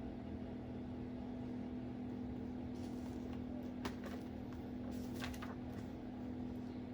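Quiet room tone: a steady low hum, like an appliance or fan running, with a few faint soft clicks about three and five seconds in.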